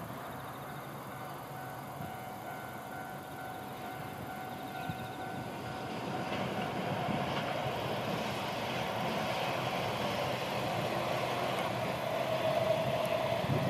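EF210 electric freight locomotive hauling a train of tank wagons and approaching at a distance: a low rumble that grows steadily louder, with a steady tone running through it.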